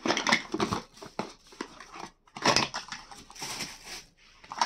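Plastic packaging crinkling and rustling in irregular bursts as a newly unboxed mini tripod is handled.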